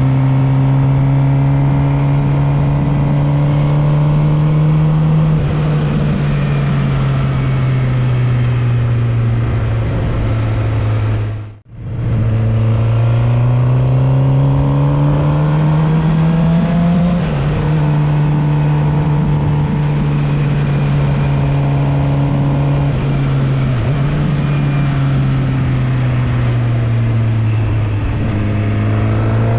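Suzuki GSX-R750 inline-four engine heard from on board the motorcycle while it is ridden, running at moderate revs with the pitch climbing and easing off in slow swells rather than hard revving. The sound dips out briefly about twelve seconds in, then picks up again.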